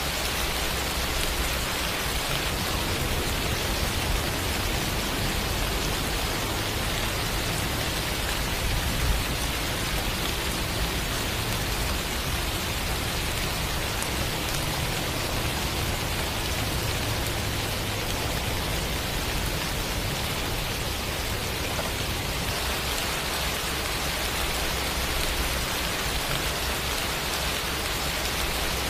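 Steady rain falling, an even, unbroken hiss of drops on a surface.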